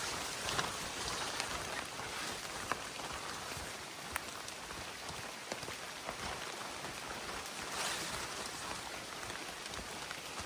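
Steady rain pattering, with scattered sharp drop ticks and a brief swish of wet brush about eight seconds in.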